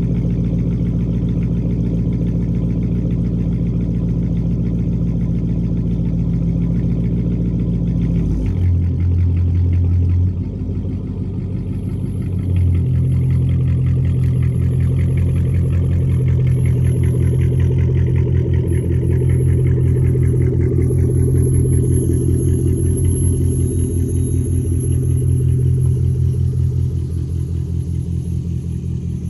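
Dodge Charger Daytona R/T's 5.7-litre Hemi V8 running steadily. Its note changes about eight seconds in and dips briefly, then it settles back into steady running from about thirteen seconds in.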